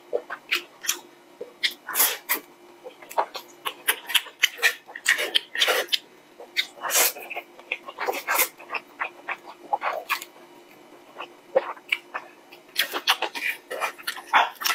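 Close-up slurping of spicy instant noodles sucked in off chopsticks, with wet chewing and lip smacks, in a quick, irregular run of short slurps that eases briefly about two-thirds of the way through.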